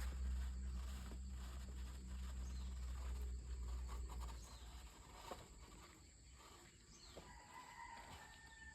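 Outdoor ambience: a steady high insect drone with a few faint bird chirps. A low engine-like hum underneath fades away about halfway through.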